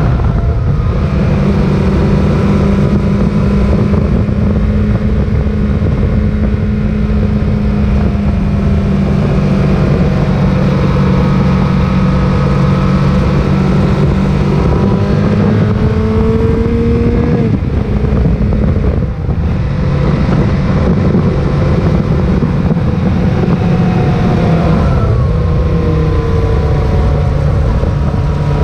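Sport motorcycle engine running under way, with a constant rush of wind noise. The engine note holds steady, rises about two-thirds of the way in, drops out briefly, then climbs again near the end.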